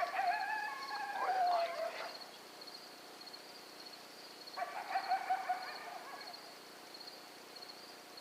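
Coyote howls: a long wavering howl that bends up and down and slides lower, then a shorter howl about five seconds in. Insects chirp in a steady high pulsing rhythm underneath.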